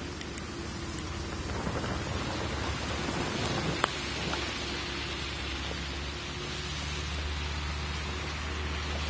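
Steady rushing noise of wind and rain, with a low rumble under it and one sharp tick a little under four seconds in.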